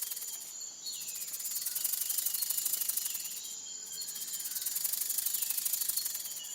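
Rattlesnake rattle buzzing steadily, a fast dry high-pitched rattling that breaks off briefly about every three seconds, with faint bird chirps behind it.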